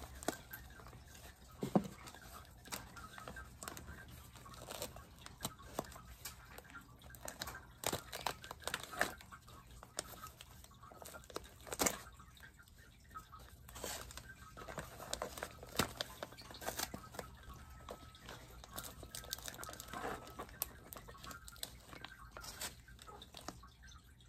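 White paper wrapping being torn and crinkled by hand as it is peeled off a potted plant, with irregular crackles and several sharper tears.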